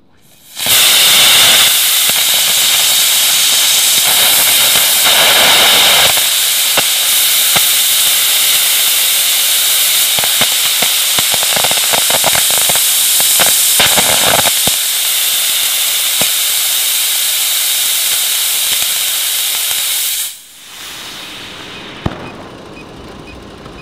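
Aerotech G8 long-burn ammonium perchlorate composite (APCP) hobby rocket motor static-firing through a throttling nozzle mechanism: a loud, steady jet hiss with crackling pops. It lights about half a second in, its tone shifts a few times, and it burns out abruptly about twenty seconds in.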